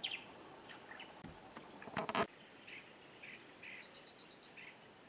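Quiet outdoor ambience with a repeated high chirping, roughly two chirps a second, from the middle on; a short crackling noise, the loudest thing here, comes just before it.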